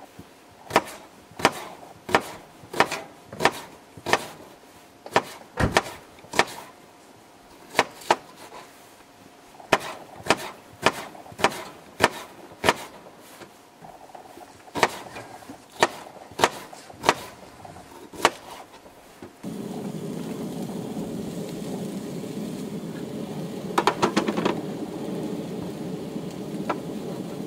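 Kitchen knife chopping onion on a wooden cutting board: sharp, regular knocks about every half second to second. From about two-thirds of the way in, a steady sizzle of onions and sausages frying on a gas camp-stove griddle takes over, with a few more knife taps.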